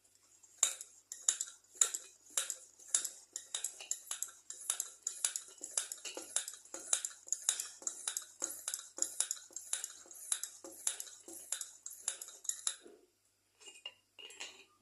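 Brass hand pump of a Petromax 250 CP kerosene pressure lantern being worked, each stroke giving a sharp metallic click, about two a second for some twelve seconds, building up pressure in the tank.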